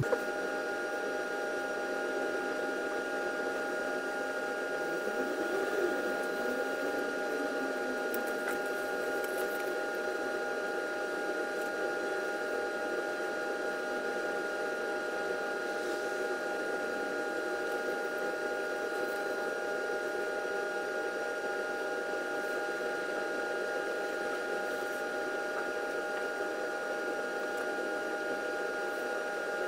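Steady background hum with several constant high tones over an even low haze, the sound of machinery running in a small room, in footage sped up fourfold.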